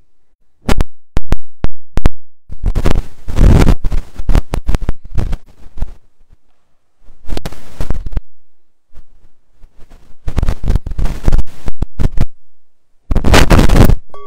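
Microphone handling noise: a few sharp clicks in the first two seconds, then loud bursts of rubbing and bumping on a small microphone held close, with short quiet gaps between them.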